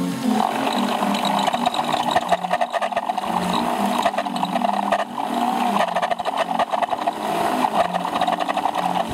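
Small motor and gearing of a miniature fairground carousel running, a steady fast rattling whirr that starts just after the beginning.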